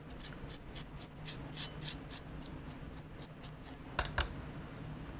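Rubber spatula scraping lime zest out of a ceramic bowl into a glass blender jar: light scrapes and soft scattered ticks, with two sharper taps about four seconds in.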